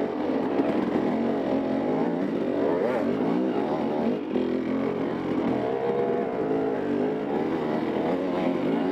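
Dirt bike engine running under way, its pitch rising and falling over and over as the throttle is opened and closed.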